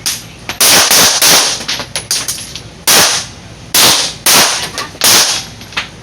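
Handgun shots from several shooters on a firing line, fired in an uneven string: about seven loud cracks with short echoes, plus several fainter shots between them.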